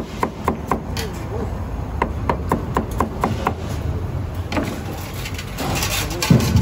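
Knife chopping on a wooden cutting board in quick runs of about five strokes a second, over a steady low hum, with one louder thump near the end.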